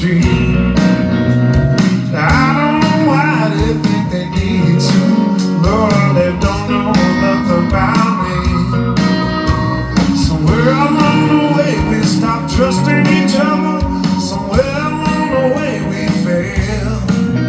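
A live blues rock band playing in E flat: electric guitars, bass, drums and keyboards, with a lead guitar line bending notes up and down over the band.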